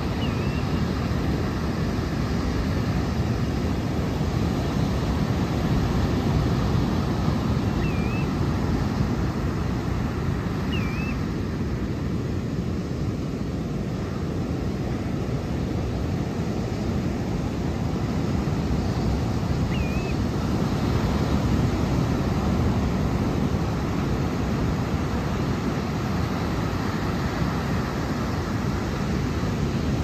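Pacific Ocean surf breaking and washing up a sandy beach: a steady deep rush that swells and eases slowly as the waves come in. Four short high chirps sound over it, near the start, about 8 and 11 seconds in, and again about 20 seconds in.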